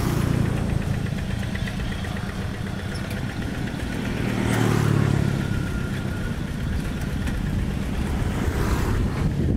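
Single-cylinder Kubota diesel engines of two-wheel hand tractors running steadily under load while the tractors plough wet paddy mud. The engine note grows louder for a moment about halfway through.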